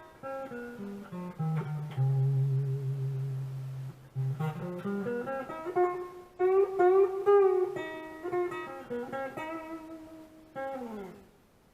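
Modded Monoprice Mini Cali electric guitar played clean on its neck pickup: a falling run of single notes, a low note held for about two seconds, then a rising run into a higher melodic phrase. A last falling run near the end stops abruptly.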